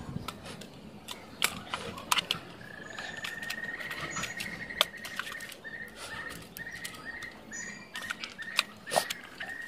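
Sharp clicks and taps of a Dell laptop's plastic bottom cover being handled and fitted back on, with an intermittent high, even squeak that starts about three seconds in and comes and goes in short stretches.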